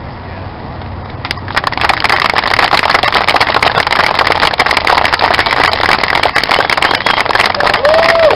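A crowd of onlookers bursts into loud, sustained clapping about a second and a half in, over a low rumble heard at first.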